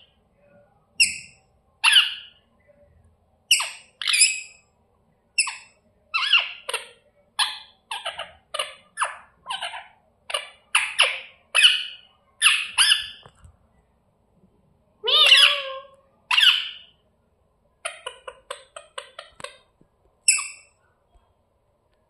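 Rose-ringed (Indian ringneck) parakeets squawking over and over in short, sharp calls, with one longer call partway through and a quick string of short chirps near the end.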